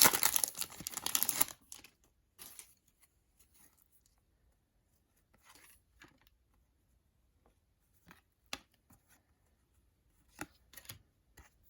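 Foil trading-card pack wrapper torn open and crinkled for about the first second and a half, then faint, scattered taps and slides of cards being handled and flipped through.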